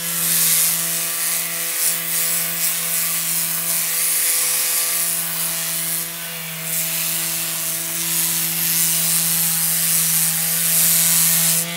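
Electric detail sander with a triangular pad running steadily, rasping as it grinds down dried mortar joints between concrete formwork blocks, over a motor hum of steady pitch. The rasp rises and falls as the pad is pressed to the wall, dipping briefly about six seconds in.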